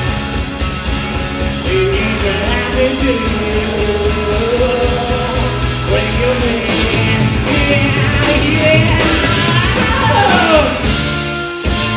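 Live rock band playing with electric guitars, drums and trombone under a sung vocal line. There is a long downward slide in pitch near the end.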